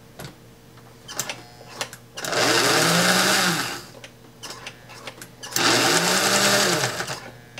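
Electric motor of an American Flyer steam locomotive, its wheels spinning free on blocks, run up twice for about a second and a half each. Each time its whine rises and then falls as the transformer's power is turned up and back down. A few clicks come just before the first run.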